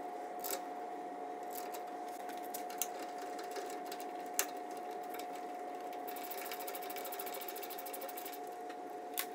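Scattered sharp metal clicks and taps as the hub cap and its metal washer are handled and fitted on the Jeep's wheel hub, with a quick run of rapid fine ticking from about six to eight seconds in. Under it all runs a steady hum with a constant tone.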